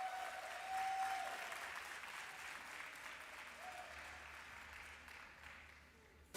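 Audience applause that gradually dies away.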